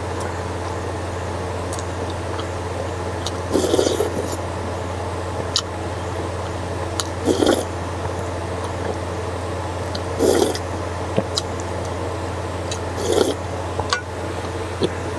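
Soup slurped from a wooden spoon four times, about three seconds apart, with a few light clicks in between, over a steady low hum.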